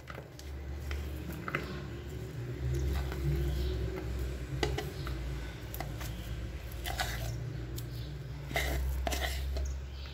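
A spoon scraping thick cream out of a plastic tub, with soft squelches and scattered clicks as the spoon knocks the tub and clumps drop into the bowl, over a steady low hum.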